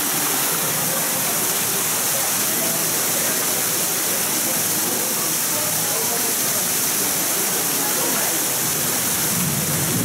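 Steady splashing and falling water from a decorative fountain: small water jets and a thin waterfall running down an artificial rock wall into a pool. Voices chatter faintly in the background.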